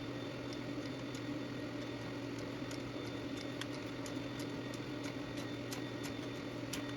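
Steady low hum with faint, irregular ticks scattered through it.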